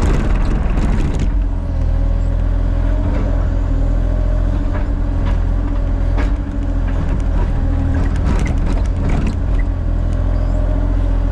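Kubota diesel engine running steadily under load, with intermittent knocks and scrapes from a steel bucket working rocky soil while a ditch line is shaped. The knocks and scrapes come thickest in the first second and again late on.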